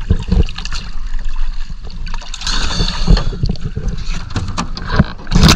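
Choppy water slapping and sloshing against the side of a small boat's hull at the waterline, with wind buffeting the microphone. A louder splash comes near the end.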